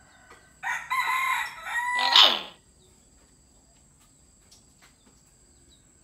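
Hill myna giving one loud, harsh, crow-like call about two seconds long, ending in a falling note.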